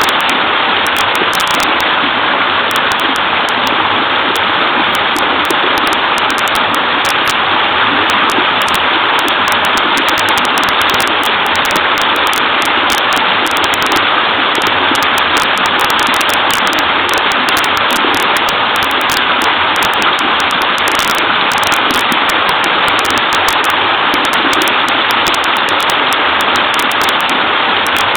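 Small waterfall splashing into a stream: a steady, even rush of clear running water with no breaks.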